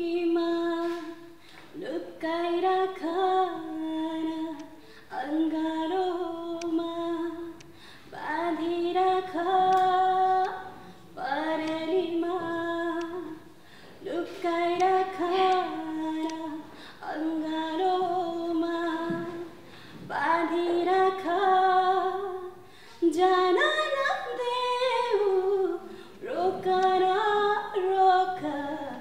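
A woman singing a song unaccompanied, in phrases of two to three seconds with short breath pauses between them.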